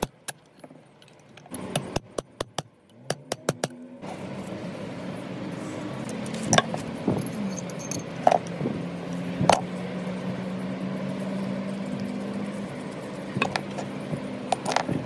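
Metal clinks and taps from handling the steel parts of a monkey wrench, a run of sharp clicks in the quiet. After an abrupt change the clicks give way to a steady hum with a few louder metal knocks.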